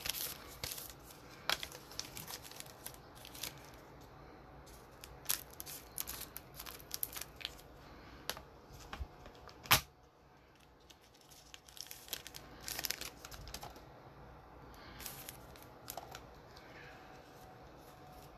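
Trading cards and their crinkly pack wrapper being handled during a pack break: quiet rustling and crinkling with scattered clicks of card stock, and one sharp snap about ten seconds in.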